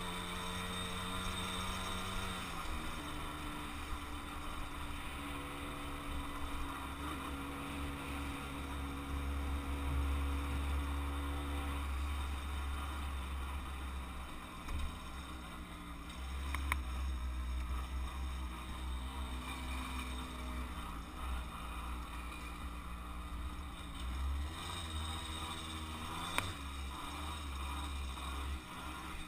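Kreidler moped engine running while ridden, its pitch stepping and gliding up and down with speed and gear changes, over a low rumble of wind and road noise on the microphone.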